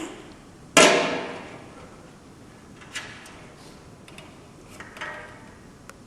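One loud thump or crash about a second in, dying away over about a second, followed by a few faint knocks and clicks.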